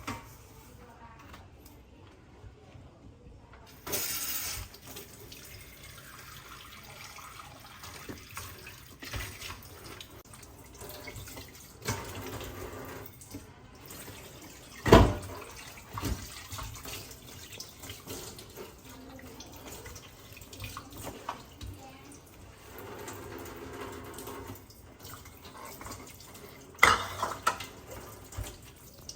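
Water running from a tap into a kitchen sink, with dishes and utensils clattering; two sharp knocks stand out, one about halfway through and one near the end.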